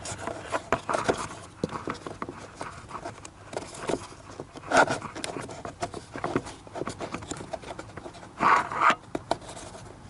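Handling noise of a new pleated cabin air filter being pressed into its plastic housing: the paper pleats rustle and scrape against the plastic, with many small clicks and taps. Two louder rustling bursts come about halfway through and near the end.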